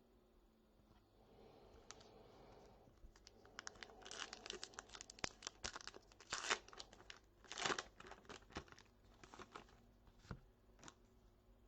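Trading card pack wrapper being torn open and crinkled: a run of crackling, rustling tears starting about three seconds in, loudest in the middle.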